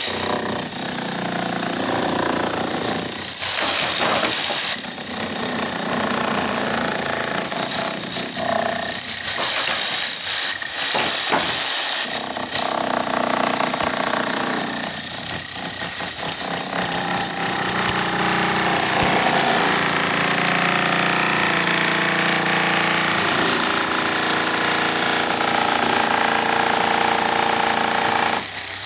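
Bosch GSH 11 E electric demolition hammer chiselling into a reinforced concrete slab, its rapid hammering running continuously with a few brief pauses.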